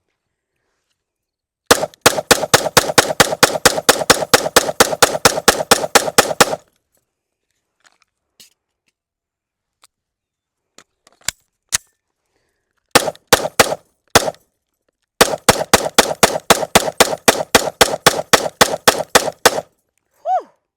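Sig Sauer M18 9mm pistol fired rapidly: a long string of shots at about four a second, a few scattered shots, then another long string of rapid shots, emptying the magazine.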